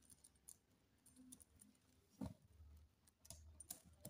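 Faint scattered clicks of beads, a metal chain and a small hand tool being handled, with one soft knock about two seconds in.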